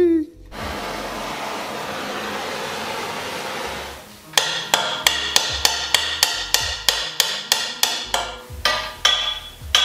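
A handheld propane torch hisses steadily for about three seconds, heating a bent steel motorcycle headlight bracket. Then a claw hammer strikes the bracket in a steady run of blows, about three a second, bending it back straight.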